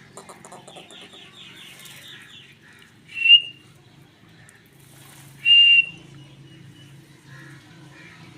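Pet parrot calling: a quick run of soft chirps, then two short, loud whistle-like calls about two seconds apart.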